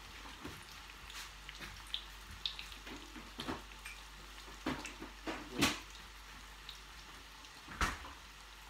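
Steady sizzle of food frying in oil on the stove, with a few scattered clinks and knocks, the loudest about five and a half seconds in.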